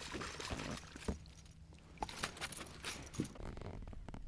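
Water trickling and dripping, with scattered light knocks and clicks of handling in a kayak.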